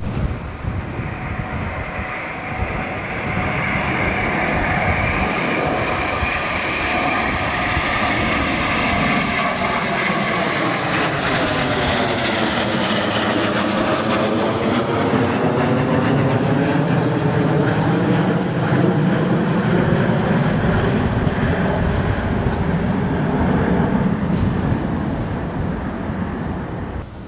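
Aircraft flying low overhead: the engine noise builds over the first few seconds, its tone sweeping down and back up as it passes over about halfway through, then drops away near the end.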